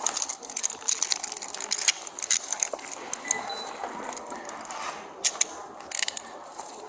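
Handcuffs and police belt gear clicking and jingling in quick, sharp ticks while a person's hands are held behind her back for cuffing, with clothing rustling against the body camera. The clicks come thickly in the first couple of seconds and again in a short cluster near the end.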